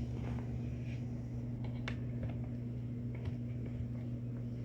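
A steady low hum with a few faint, scattered clicks and taps.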